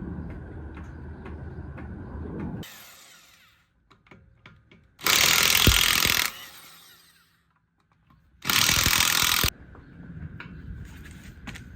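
A handheld power tool running in two short bursts, about a second each, a few seconds apart, with quieter low rumbling and handling noises around them.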